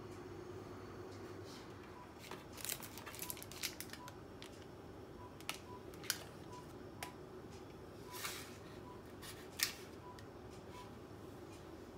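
Parchment baking paper crinkling and rustling as a soft, proofed dough log is picked up by its paper and set down into a pot, in scattered short crackles with a sharper tap near the end. A steady low hum runs underneath.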